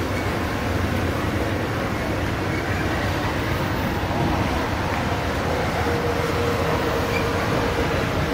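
Amtrak Superliner bilevel passenger cars rolling past, with a steady rumble of steel wheels on the rails. A faint steady high tone joins in about six seconds in.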